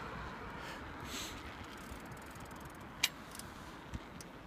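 Steady rumble and hiss of riding a bicycle along a city street, with one sharp click about three seconds in and a couple of fainter rattles after it.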